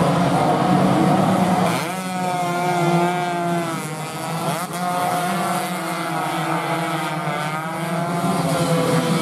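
Several 125 cc two-stroke underbone racing motorcycles running at full throttle together, their high-pitched engine notes overlapping. The pitch climbs sharply as the bikes accelerate, about two seconds in and again near five seconds, then falls and climbs again through the gears.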